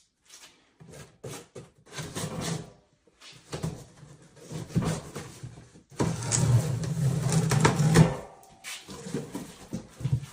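Irregular rustling, scraping and knocking of a package or part being handled, loudest and busiest from about six to eight seconds in.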